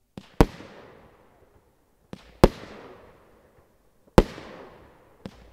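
Original's Brutal Box 76-shot firework battery firing shots about every two seconds: each a small launch pop from its tube, then a split second later a loud bang as the shell bursts, fading over about a second. Three bangs, with another launch pop near the end.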